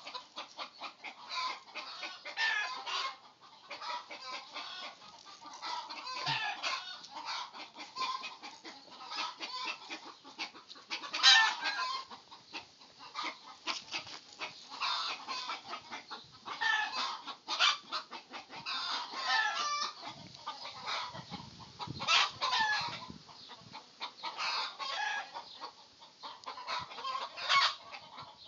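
Chickens clucking, a steady stream of short calls one after another, with one louder call about eleven seconds in.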